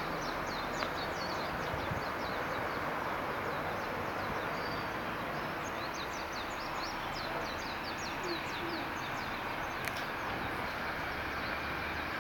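Birds chirping in many short, high, quickly falling notes, denser in the second half, over a steady outdoor hiss.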